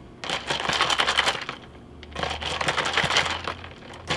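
Iced cold brew coffee being stirred in a cup, the ice and utensil clinking and rattling in two bursts of about a second each.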